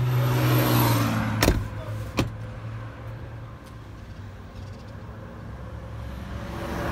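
A pickup truck door is shut with one sharp, loud knock about one and a half seconds in, followed by a lighter knock. A steady low hum runs underneath.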